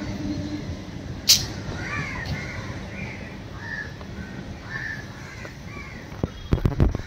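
Crows cawing several times. A single sharp click comes a little over a second in, and a run of loud crackling knocks starts near the end.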